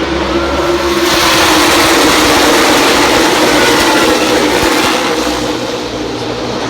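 Pack of NASCAR Cup Series stock cars with their V8 engines at full throttle as the field takes the green flag: many engines overlapping, swelling about a second in and easing off near the end.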